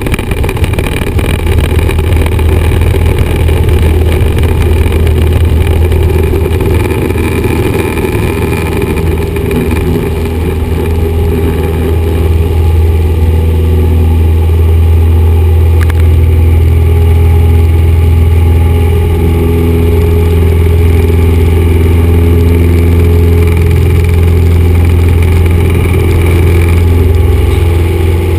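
1974 Cessna 172's four-cylinder Lycoming piston engine and propeller running at high power for takeoff, heard from inside the cabin as a loud, steady, deep drone that grows slightly louder about twelve seconds in.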